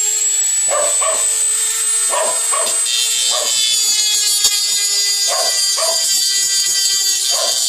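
Dremel rotary tool running at full speed with a steady high whine, its cutting disc scoring through the plastic of a headlight housing. Over it, a dog barks in short pairs every second or two.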